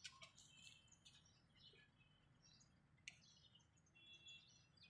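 Near silence, with faint, scattered chirps of small birds.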